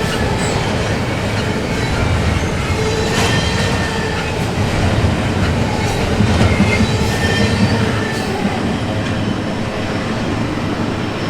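Intermodal freight train cars rolling past on the rails: a steady heavy rumble with wheel clatter and faint high-pitched wheel squeal.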